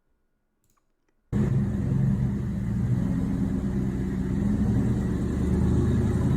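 A car engine running steadily with a deep rumble, cutting in suddenly about a second in after near silence.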